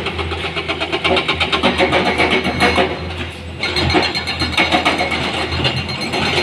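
Heavy diesel engine running with a rapid clatter; the sound dips briefly a little after three seconds in, then picks up again.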